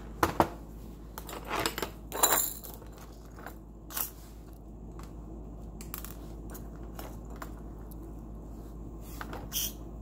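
A scatter of light clicks and small metallic clinks, a few of them sharp, over a steady quiet background.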